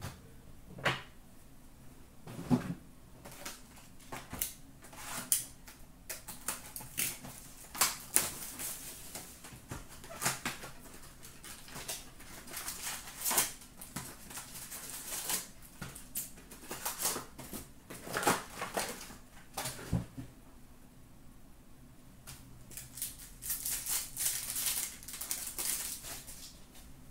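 Hockey card packs being opened and handled by hand: wrappers crinkling and tearing, and cards clicking and rustling as they are flicked through and squared into stacks. The sounds come in irregular flurries of short clicks and rustles over a faint steady hum.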